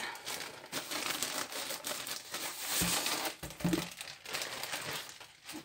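Plastic packaging crinkling and rustling as hands handle and unwrap a rolled diamond-painting canvas.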